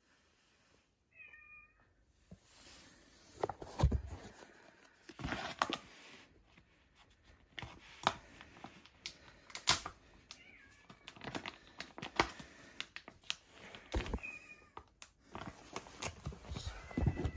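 A cat meowing several short times, amid sharp clicks and rustles of handling that are louder than the meows.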